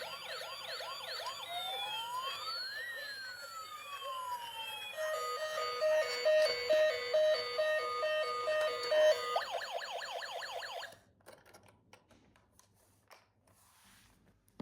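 Electronic toy police siren from an RC police patrol van cycling through its patterns: a fast yelp, then a slow rising and falling wail, then a two-tone hi-lo alternating about twice a second, then the fast yelp again. It cuts off suddenly about eleven seconds in, followed by near silence.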